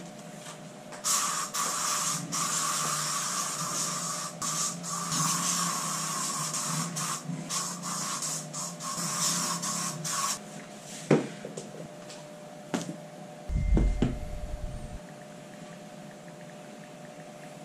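A hand rubbing and brushing over the top of a cardboard balikbayan shipping box, a scratchy noise that runs for about ten seconds with brief breaks and stops suddenly. A few light clicks and a dull low thump follow, over a faint steady hum.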